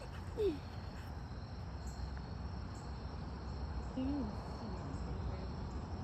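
Steady high-pitched chorus of insects trilling over a low background rumble. Two short low-pitched sounds come through, a falling one about half a second in and a wavering one about four seconds in.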